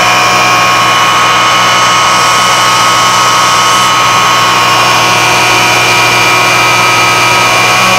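Electric wood router running steadily at about 1,600 rpm as it drives an axial flux alternator under a resistor load: a steady, high motor whine made of several pitched tones over a low hum.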